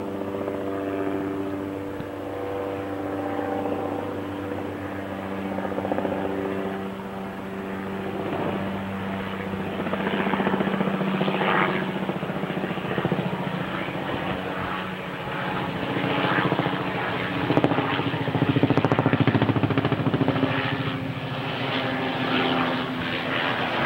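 Helicopter flying past overhead: a steady engine hum with a rapid rotor beat, growing louder toward a peak about three-quarters of the way through, then easing off.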